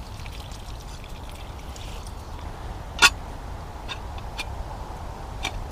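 Water poured from a metal bottle into a mess tin of rice on a spirit stove, then one sharp metallic clink about three seconds in as the tin's lid goes on, followed by a few lighter clicks. A low steady rushing sound lies underneath.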